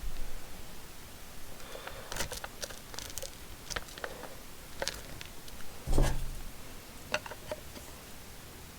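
Scattered small clicks and taps of a cordless oscillating multi-tool being handled as its accessory and clamping screw are fitted, with a louder dull bump about six seconds in.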